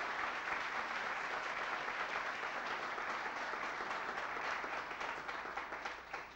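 Audience applauding: a steady wash of many hands clapping that dies down near the end.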